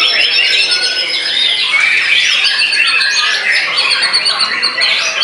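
White-rumped shama song: a dense, continuous stream of rapid whistles, trills and harsh squawky notes with no pause.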